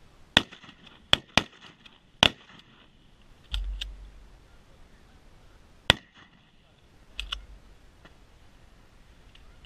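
Shotgun shots: four sharp reports within the first two and a half seconds and a fifth about six seconds in, with fainter paired clicks between them.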